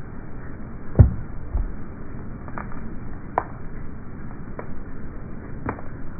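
A small orange object cracking and snapping as it is slowly crushed under a pickup truck's tyre on wet asphalt: a sharp crack with a low thump about a second in, then several smaller cracks spread over the next few seconds.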